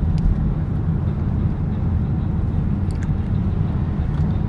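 Steady low rumble of a car on the move, heard from inside the cabin, with a couple of faint clicks.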